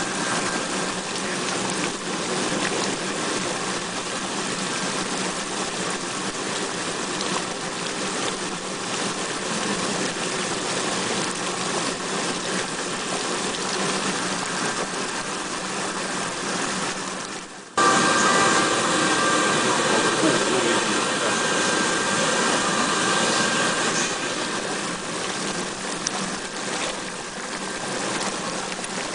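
Steady rushing and bubbling of water heating on an induction cooker, with a faint steady hum under it. The sound breaks off abruptly about two-thirds of the way through and comes back louder.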